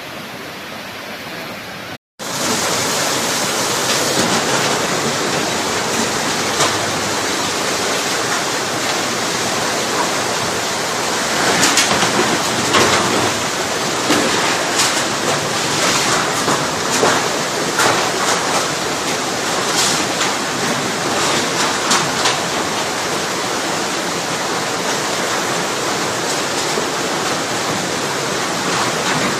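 Swollen floodwater rushing steadily. A scatter of brief sharper splashes or knocks rises above it in the middle stretch.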